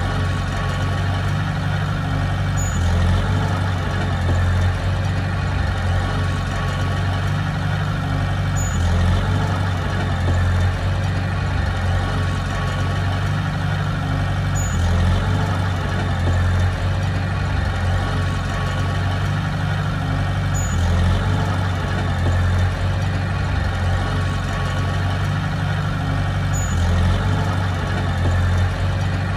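Heavy diesel engine of earth-moving machinery running steadily, with a faint click recurring about every six seconds.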